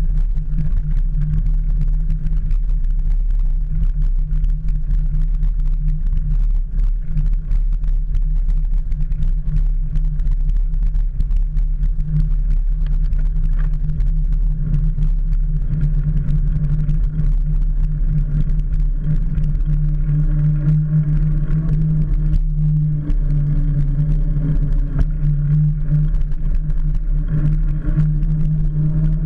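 Steady low rumble of wind and road vibration picked up by a camera mounted on a bicycle's handlebars while riding on asphalt.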